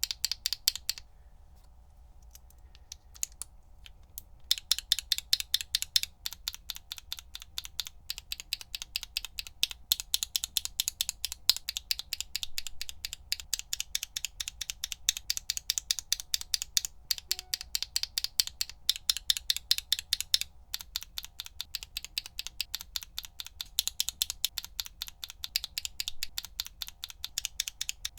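Single tactile mechanical keyboard switches pressed and released over and over, one switch after another: a fast run of sharp clacks, several a second. The clacks thin out to a few quiet ones from about a second in, then pick up densely again about four seconds in.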